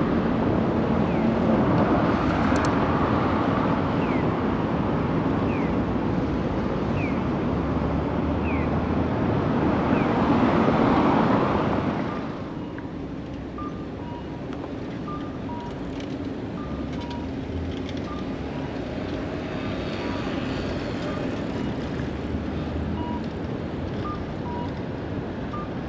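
Wind and road noise of a bicycle ride through a city street, with an electronic pedestrian crossing signal chirping about once a second. About twelve seconds in, the noise drops away as the bike slows at the intersection. The crossing signal goes on as short two-note beeps over distant traffic.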